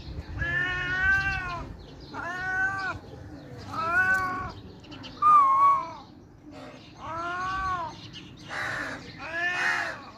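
Domestic cat meowing repeatedly, about seven separate meows roughly a second and a half apart, each rising and then falling in pitch; the last couple near the end are harsher.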